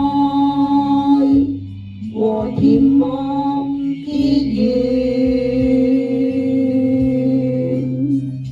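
A Chinese song: a singer draws out long notes over instrumental backing. The last note is held for about four seconds before the music carries on alone.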